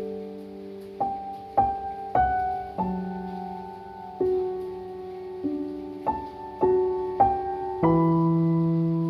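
Slow piano music: single notes and chords struck about every half second to second, each left to ring and fade, with a deeper chord about three seconds in and again near the end.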